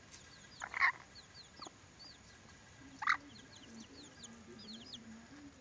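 Birds calling: two short harsh squawks, about a second in and about three seconds in, over many thin high chirps repeating throughout.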